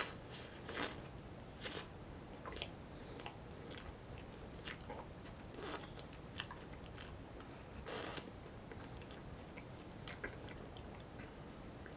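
Close-miked bites and chewing of an ice cream bar, with short wet mouth clicks and smacks scattered between them; the loudest bursts come at the start, about a second in, and about eight seconds in.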